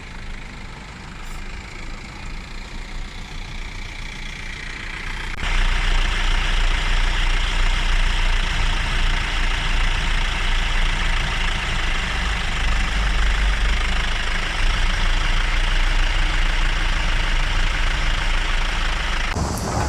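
A jeep's engine running, then much louder from about five seconds in, with a heavy low rumble and a rushing noise over it.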